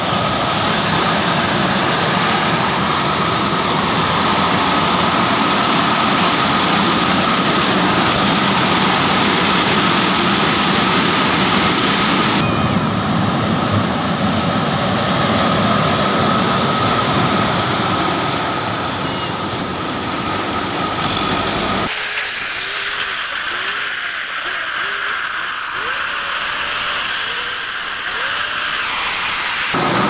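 Self-propelled maize (corn) harvester running as it cuts standing maize: a loud, steady machine drone with a constant high whine. The sound changes abruptly twice, about 12 and 22 seconds in, the last part thinner with less low rumble.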